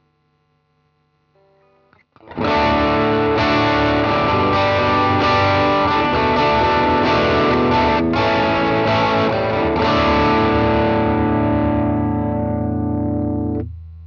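Electric guitar with a P90 bridge pickup played through a DigiTech Bad Monkey overdrive pedal. Distorted chords come in about two seconds in, struck about once a second and left to ring, then stop sharply near the end.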